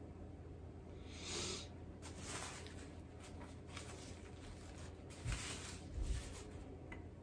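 Quiet close-up eating and handling noises: a brown paper napkin rustling as it is wiped across the nose and mouth, with a brief hissing rustle about a second in and two soft low thumps about five and six seconds in.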